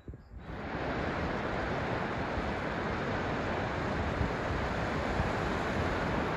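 Ocean surf washing onto a sandy beach: a steady rush of breaking waves that comes in about half a second in.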